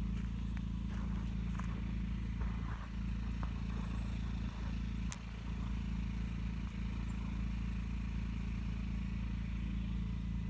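A motor running steadily with a low, even drone, with a few faint clicks over it and one sharper tick about five seconds in.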